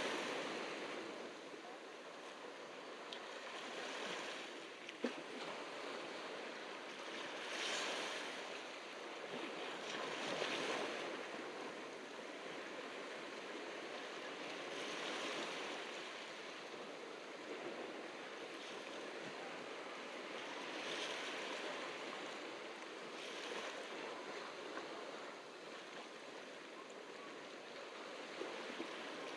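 Small ocean waves washing onto a beach, a steady hiss that surges every three to five seconds as each wave breaks. There is one brief sharp click about five seconds in.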